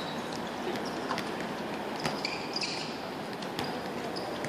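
Background sound of a football match being played on an outdoor pitch: steady noise with a few scattered sharp knocks.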